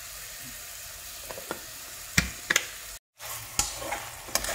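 Chicken pieces sizzling in hot oil in an aluminium pressure cooker, a steady frying hiss, sautéing until the meat turns white. After a brief dropout about three seconds in, a metal spatula clicks and scrapes against the pot as the chicken is stirred.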